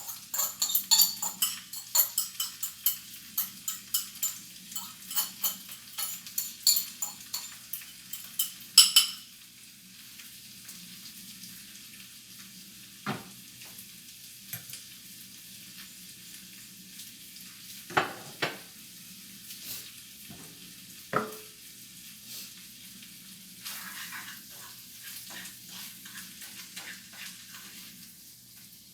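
Utensil clicking and scraping quickly against a dish for about nine seconds, then a few separate knocks, over a low steady hum.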